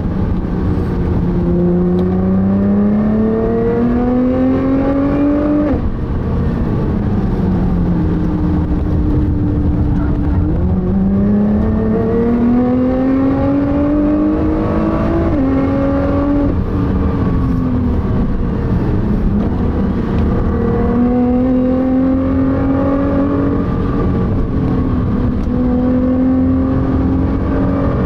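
A car's engine heard from inside the cabin under hard acceleration, its note climbing steadily and dropping sharply at each upshift, several times, over steady tyre and road noise.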